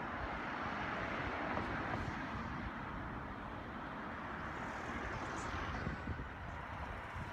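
Steady road and engine noise of a car driving slowly.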